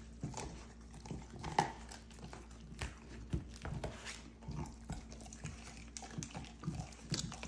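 A Belgian Malinois chewing raw rib bones: irregular crunches and cracks, a few each second.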